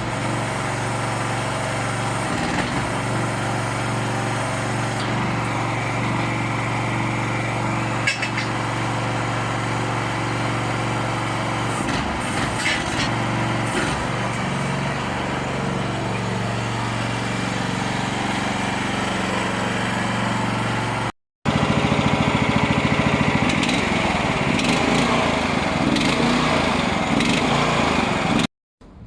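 Small 15 hp engine of a compact backhoe running steadily; after a short break about 21 s in it comes back louder.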